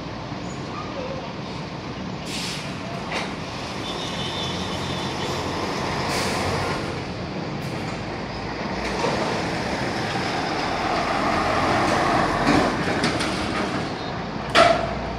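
Container tractor-trailer's diesel engine and tyres running as the truck approaches and passes close by, growing louder toward the end, with one short, sharp burst near the end.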